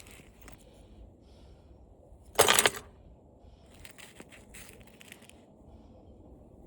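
Small steel pieces stripped from an old CRT television being handled and set down on a scale: one loud clatter about two and a half seconds in, then light rustling and clicks.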